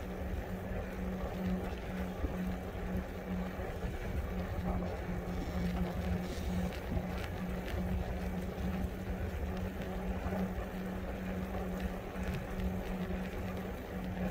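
E-bike on the move: a steady motor hum over the low rumble of wind and tyres.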